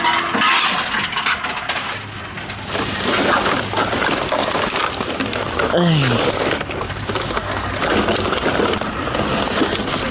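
Tomra 42 can reverse vending machine running, a steady motor hum under rough clattering noise as a can is taken in and processed; a short falling tone about six seconds in.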